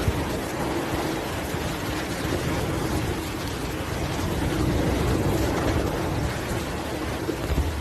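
Steady rushing noise of a hurricane: wind and water.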